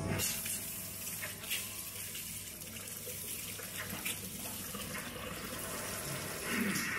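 Water running from a salon shampoo basin's handheld spray nozzle while a client's hair is rinsed, with a steady hiss of spray and splashing into the basin that grows louder near the end.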